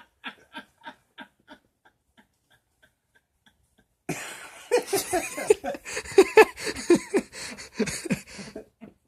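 Laughter: a run of short, rhythmic laughs, about three a second, dying away over the first few seconds, then louder, hearty laughter from about four seconds in that stops just before the end.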